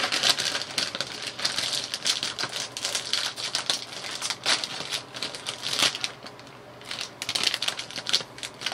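Shiny foil potato-chip bag being torn open and handled: a dense run of crinkling and crackling with a short lull about six seconds in.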